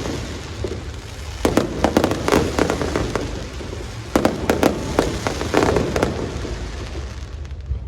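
Aerial fireworks shells bursting in rapid clusters of bangs and crackles, one volley about a second and a half in and another about four seconds in, over a steady low rumble.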